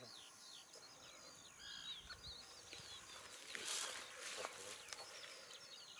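A songbird singing a chattering song of quick, varied short notes, with a brief rustle of handling about three and a half seconds in.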